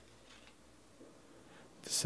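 Faint rustle and slide of glossy trading cards being flipped through by hand, a quiet stretch between called-out names; a voice starts up right at the end.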